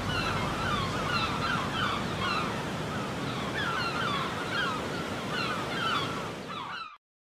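Sea-surf ambience, a steady wash of waves, with birds calling in short, repeated cries over it; it cuts off suddenly near the end.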